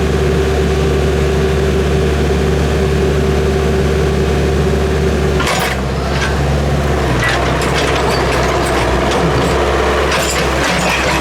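Excavator engine running steadily with a held whine that stops about halfway through, after which irregular metal clanks and cracks start over the engine, typical of the steel track and its links being worked.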